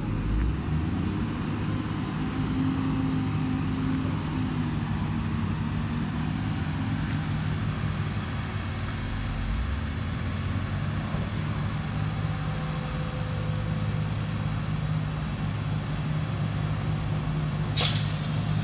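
BMC 827 Pro dump truck's diesel engine running steadily while its hydraulic tipper raises the loaded bed to dump. A short burst of hiss near the end.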